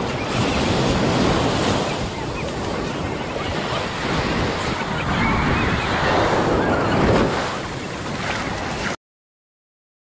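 Ocean surf washing onto a beach, a steady rush that swells twice as waves break, then cuts off abruptly near the end.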